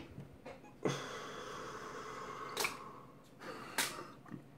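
Faint rustle of a camera strap being worked through the strap eyelet of a compact camera, with three small sharp clicks more than a second apart.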